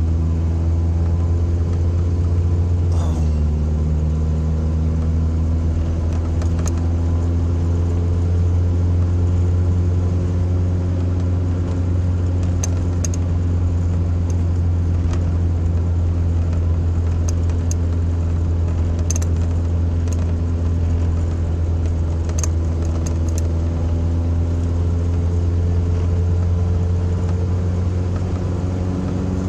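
Toyota pickup's engine and exhaust running steadily on the road, its exhaust leak patched with exhaust wrap. The engine note drops in pitch about three seconds in, then slowly climbs again.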